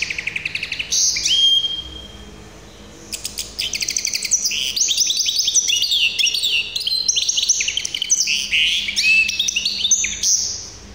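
Caged hybrid finch singing: rapid high-pitched trills and quickly repeated notes. It breaks off for about a second around two seconds in, then runs on in a long stream of varied phrases that stops shortly before the end.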